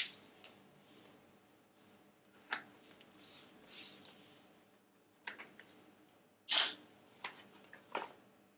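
Utility knife slitting the tape seals on a small cardboard box, with short scrapes and rustles of the box being handled and turned over. The sounds come in scattered bursts, and the loudest scrape is about six and a half seconds in.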